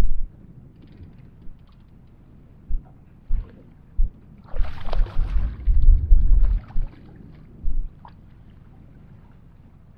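Wind buffeting the microphone in low thumps, and water sloshing against a small boat's hull, with a louder rush of noise around five seconds in.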